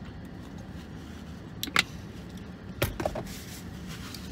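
A man drinking from a plastic shaker bottle: a sharp gulp or click about two seconds in, then a few quick clicks and knocks of the bottle being handled, over a steady low hum inside the car.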